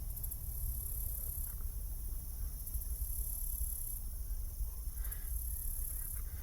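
An insect singing in high-pitched trills, three of them about a second long and a second or so apart, each starting with a quick stutter. A steady low rumble runs underneath.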